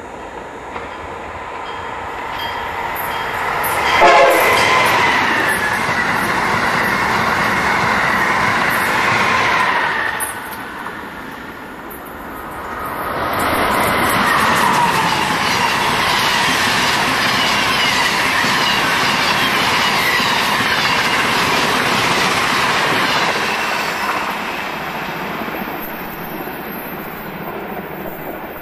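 Amtrak Acela Express electric high-speed trainset passing at speed: the rush of wheels on rail builds and peaks about four seconds in, with a short horn blast whose pitch falls as the train goes by. After a break of a couple of seconds, a steady train rush rises again and holds for about ten seconds before fading.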